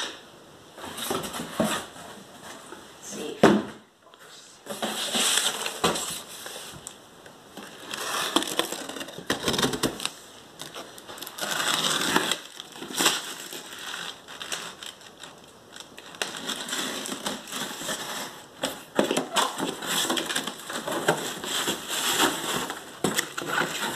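Hands rummaging through polystyrene packing peanuts and handling cardboard boxes: rustling in irregular bursts, with one sharp knock about three and a half seconds in.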